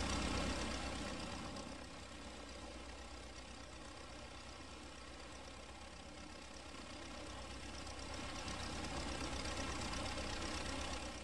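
Small propeller biplane's engine running steadily as it taxis. It grows fainter over the first few seconds, then louder again from about seven seconds in as the plane comes back toward the listener.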